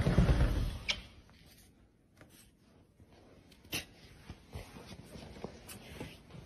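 A brief burst of low rumbling noise in the first second, then faint, scattered soft crunches and scuffs of a cat pushing through deep snow.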